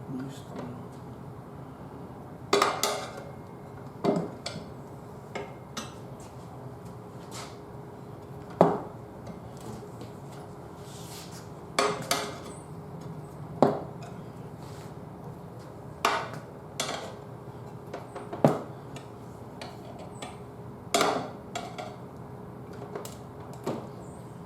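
Sharp metallic clanks and knocks of a tyre-changing tool and levers against a steel spoked motorcycle rim as the tyre bead is worked on, one every two or three seconds, irregularly, over a low steady hum.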